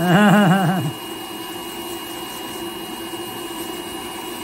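A podiatry electric nail drill runs steadily with a constant-pitch hum as its small burr grinds down a toenail. Over it, about the first second, comes a brief, loud burst of laughter.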